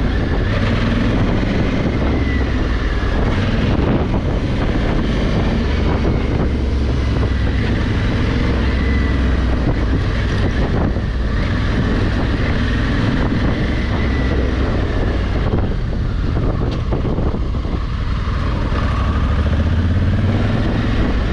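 Honda Africa Twin's 1,100 cc parallel-twin engine running while the motorcycle is ridden, its low rumble swelling and easing a few times, with wind noise over the microphone.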